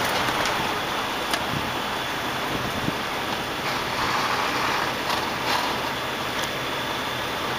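Steady engine and road noise inside a moving semi-truck's cab, with a few sharp rattles and knocks as the truck goes over bumps.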